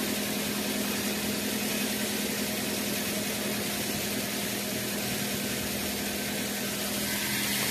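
Suzuki SX4's M16A 1.6-litre four-cylinder petrol engine idling steadily with its catalytic converter removed, heard at the open engine bay.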